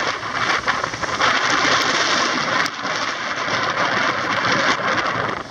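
Bicycle riding along a sand-covered path in strong wind: a steady loud rush of wind over the microphone mixed with the tyres hissing over sand and grit, with a few faint ticks.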